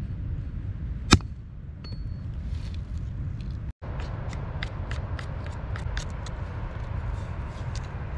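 Knife whittling and scraping the bark off a freshly cut green wooden stick: a sharp knock about a second in, then a run of short scrapes, over a steady low rumble.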